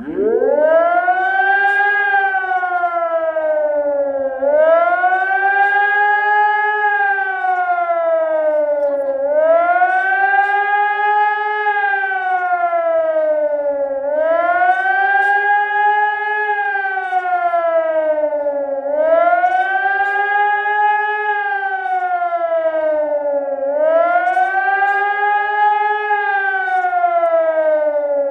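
Hörmann ECI-DT 1200 electronic warning siren sounding a test alarm. It starts with a rising sweep and then wails steadily up and down: each cycle rises, holds briefly at the top and falls, about once every four to five seconds, six times over.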